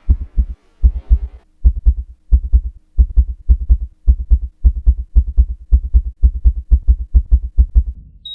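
Heartbeat sound effect: loud, low double thumps (lub-dub) repeating at a fast pulse of a little over one beat a second, over a faint steady hum. They stop near the end.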